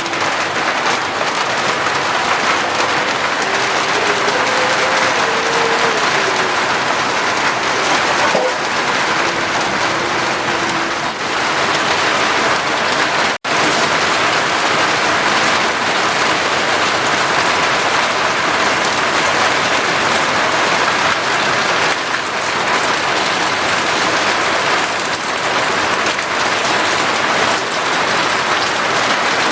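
Heavy rain falling steadily, a dense even hiss of drops. The sound cuts out for an instant about halfway through.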